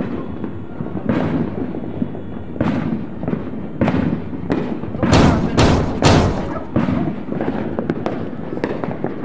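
Fireworks going off all around: scattered loud bangs over a constant rumble of more distant bursts, with a quick run of several sharp bangs about five to six seconds in.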